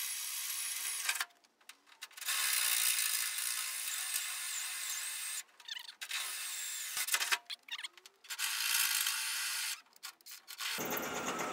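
Cordless drill boring a 6.5 mm tapping-size hole for a 5/16 UNC thread through the steel bodywork of a 1941 Ford pickup near the rear fender. It runs in stretches of a few seconds, stopping and restarting several times.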